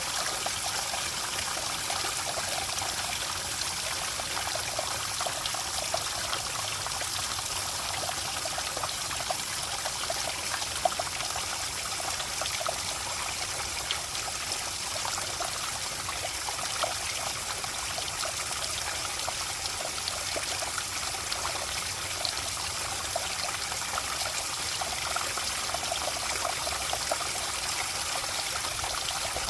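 Running water trickling steadily, with many small splashes and gurgles throughout.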